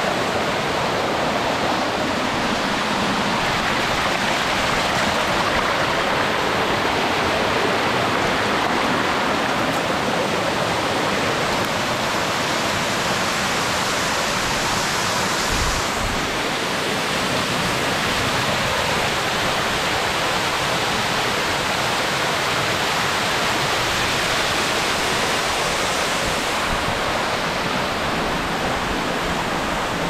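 Steady rush of water from a cascading mountain stream, loud and unbroken.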